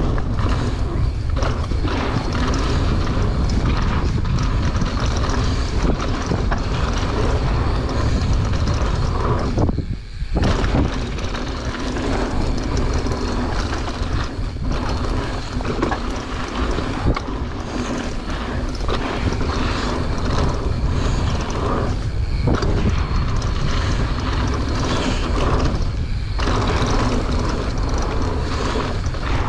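Steady rushing wind noise on the microphone with a low rumble of tyres on a dirt trail, as a bike rides down the trail. The noise dips briefly about ten seconds in and twice more later.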